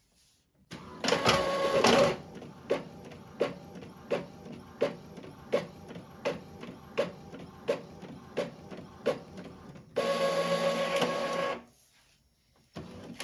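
Epson EcoTank L3211 inkjet printer printing a sheet of holographic vinyl. A loud mechanical whir about a second in as the sheet is drawn in, then a regular click about every 0.7 s as it prints, and another loud whir near the end as the printed sheet is fed out.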